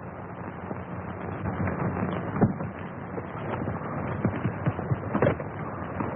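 Horses' hooves clattering irregularly as riders mount and set off, over the steady hiss of an old optical film soundtrack.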